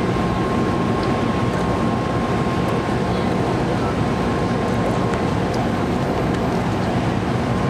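Tatra T4 tram standing at a stop, giving a steady hum with a thin high whine running through it, over crowd and street noise.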